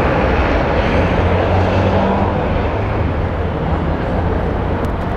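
Steady city traffic noise from passing cars and buses, an even wash of sound over a constant low rumble.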